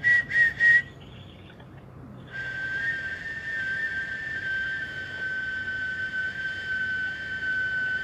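Person whistling: a quick run of short, sharp high notes, then about two seconds later one long, steady, high whistled note that is still being held at the end.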